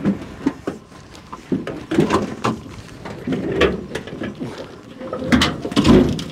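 Wooden dog kennel knocking and scraping as it is handled and set back upright after being blown over by the storm. A run of irregular wooden knocks and thuds, heaviest near the end.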